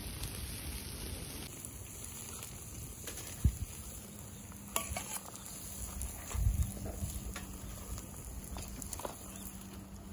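Scallops sizzling in their shells on a grill over an open fire, then light clicks of utensils against a metal cup, with two dull knocks.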